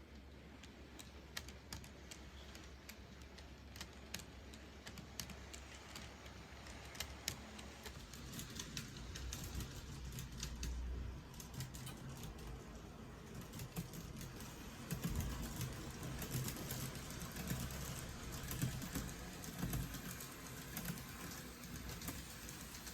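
N gauge model 300 series Shinkansen running on model track: a rapid, irregular clicking of wheels over rail joints with a low motor hum, getting louder about a third of the way in and again past halfway as the train comes closer.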